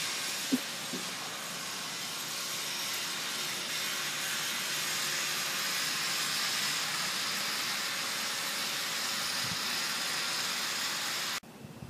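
Steady, even hiss with one short knock about half a second in; the hiss cuts off abruptly near the end.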